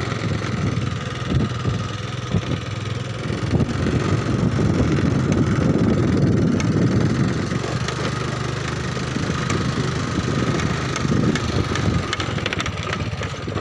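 Motorbike engine running steadily as the bike rides along a rough dirt track, with a continuous low rumble and scattered knocks from the ride.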